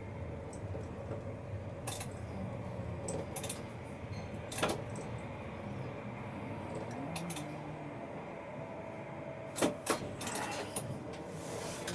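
Tram cab while the tram rolls slowly toward a signal: a steady hum with scattered short, sharp metallic clinks and rattles, the loudest two close together about ten seconds in.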